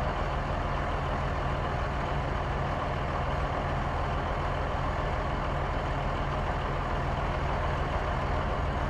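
Bus engine running steadily with a low hum.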